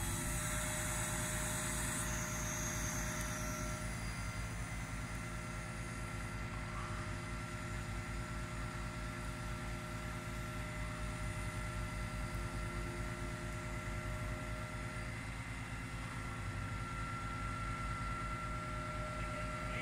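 Boom truck's engine running steadily with a fast, even low throb, driving the knuckle-boom crane's hydraulics as it lifts a load of timber joists; a steady whine rides over it, with a high hiss in the first few seconds.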